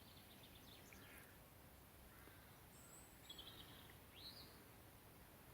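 Near silence with faint outdoor background and a few faint bird chirps in the second half.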